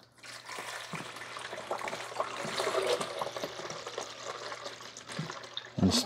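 Water pouring from a glass coffee carafe into a drip coffee maker's water reservoir: a steady splashing stream that grows louder about halfway through, then tapers off before stopping near the end.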